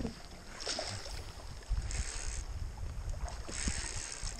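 Sea water splashing and hissing against a fishing kayak's hull in choppy water, in washes every second or two, over a low rumble of wind on the microphone.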